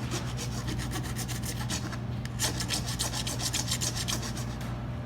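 Small hand file scraping back and forth along a cut plexiglass edge to take off the burr, in quick strokes several a second that grow stronger about halfway through. A steady low hum runs underneath.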